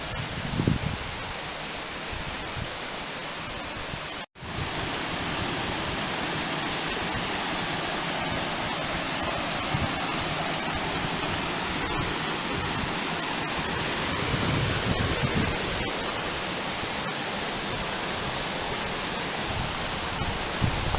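Waterfall, falling water rushing as a steady even noise, cut off for a split second about four seconds in.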